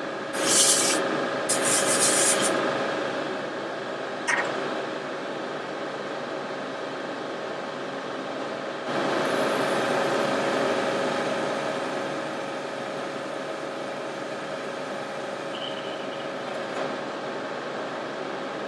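Airbrush spraying paint in short hissing bursts, two of them in the first couple of seconds and a longer, louder stretch about halfway through, over a steady background hum of the spray booth or compressor.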